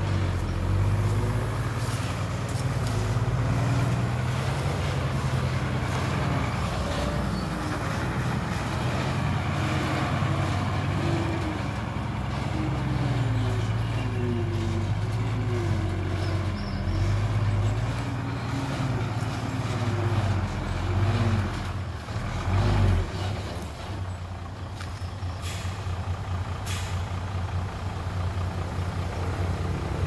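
Diesel engines of heavy earthmoving machinery, a dump truck and excavator, running loud and steady, their pitch rising and falling as they rev under load. A couple of short sharp sounds come near the end.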